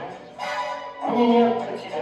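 Music from a stage concert: a melody in held notes, each changing about every half second to a second, over accompaniment.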